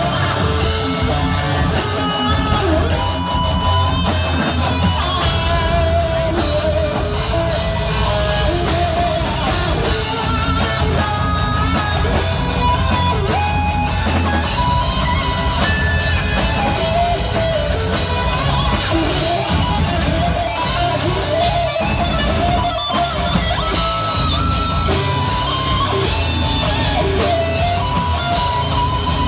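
Heavy metal band playing live: electric guitars over bass and drum kit, loud and dense throughout.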